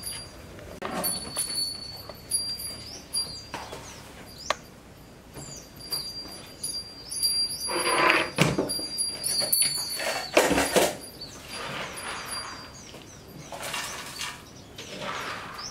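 Small birds chirping throughout, over intermittent handling sounds: plastic drum lids and metal pots clattering and scraping, the loudest about halfway through, then something poured into a large aluminium basin near the end.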